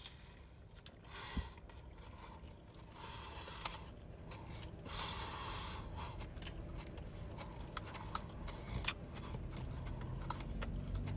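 Biting into and chewing a deep-fried Biscoff cheesecake cookie: its crisp fried crust crunches, with patches of crackly chewing and many sharp crackles in the second half.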